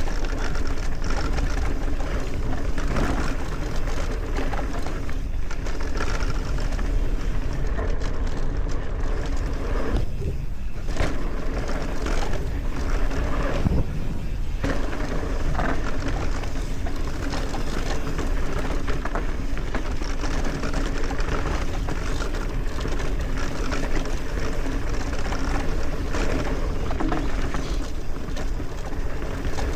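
Mountain bike descending a dirt trail at speed: wind rushing over the mic with a steady low rumble, tyres rolling on dirt, and frequent rattles and knocks from the bike's chain and frame over bumps.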